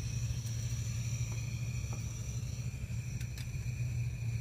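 Remote-canister gas camping stove burning under a steel pot of water with a steady low rumble. Two light metal clicks about three seconds in as the pot's folding handle is handled.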